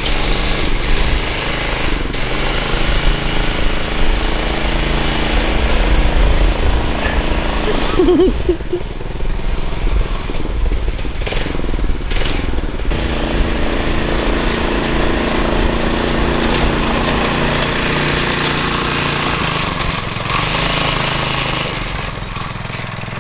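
Governed 6.5 hp small engine of a Yerf-Dog go-kart running under load as the kart is driven, its pitch shifting a few times. The kart is down on power and struggles up a hill on the governed engine and stock jet.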